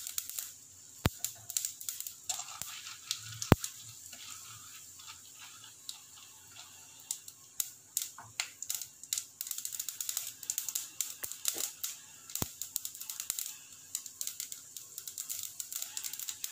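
Hot oil sizzling and crackling in a clay pot as chana dal fries with mustard seeds, cumin and asafoetida, with dense irregular spitting and a few louder single pops.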